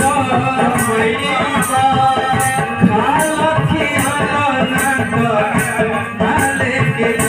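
Live devotional bhajan accompaniment: a harmonium playing the melody over hand-drum playing, with a jingling hand percussion keeping a regular beat.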